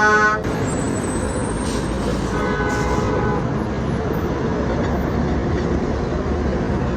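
Steady road traffic noise. A loud vehicle horn cuts off just as it begins, and a shorter, fainter horn toots about two and a half seconds in.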